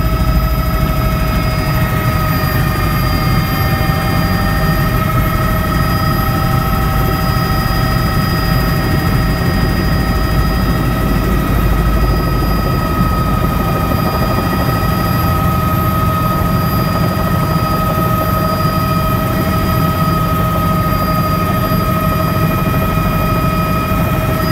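Bell 206 JetRanger helicopter heard from inside the cabin: its Allison 250 turboshaft whine and rotor noise run steady and loud, with several constant high tones over a dense low rumble. The helicopter is on a slow descending approach to land.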